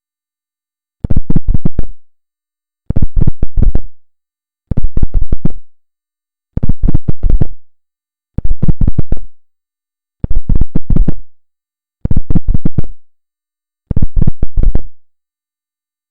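A strange buzzing signal from a refrigerator, heard as a Morse-code-like pattern: eight bursts of rapid buzzing pulses, each about a second long, repeating about every two seconds, each dying away quickly at its end.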